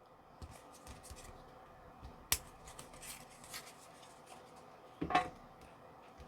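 Faint handling noises from a cardboard-and-plastic card box and trading cards: scattered small clicks and rustles, a sharp click about two seconds in, and a louder scrape about five seconds in.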